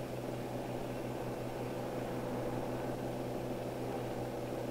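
A steady low hum with several even tones and a hiss over it, unchanging throughout.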